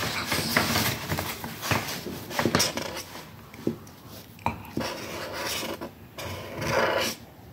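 Pen scratching on paper while writing letters, with several small clicks and knocks of things handled on a desk.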